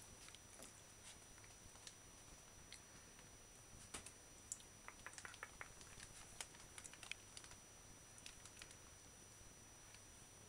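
Near silence with faint, scattered small clicks and rustles from whippet puppies moving about and wrestling on a fleecy dog bed, busiest in the middle.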